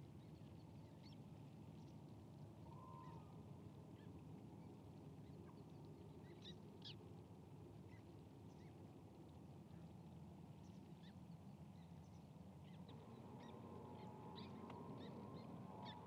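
Quiet tidal-flat ambience: a faint low steady background with scattered short, faint bird calls. A faint steady hum joins near the end.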